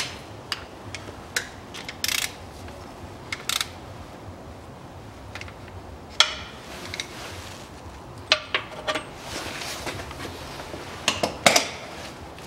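Scattered metallic clicks and clinks of a socket wrench on an extension, as the oil fill plug is screwed back in and the tool is handled and pulled off, with a few short rattling scrapes.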